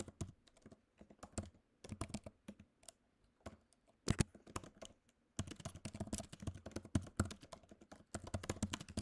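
Typing on a computer keyboard: short bursts of keystrokes with pauses between them, one louder key strike about four seconds in, then a faster, unbroken run of typing over the last few seconds.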